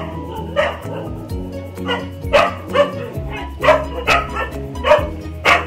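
A dog barking in short, sharp yaps, about two a second, over steady background music.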